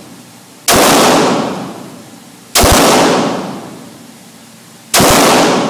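Three pistol shots about two seconds apart, each sharp report followed by a long echo that fades over about a second off the concrete walls of an indoor range.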